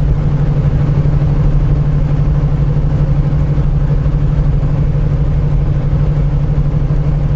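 Semi truck's diesel engine and road noise heard from inside the cab while cruising at highway speed: a steady low drone.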